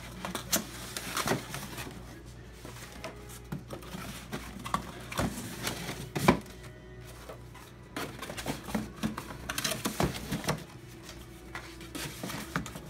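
Cardboard display pieces being folded, slid and pushed into place, giving irregular scrapes, rustles and knocks of cardboard on cardboard.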